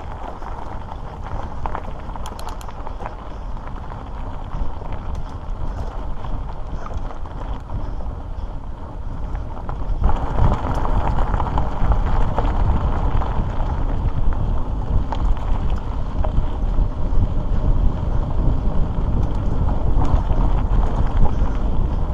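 Mountain-bike tyres rolling over dirt and gravel with wind rushing over the microphone, a continuous low rumble with a few small clicks and rattles; it gets louder about ten seconds in.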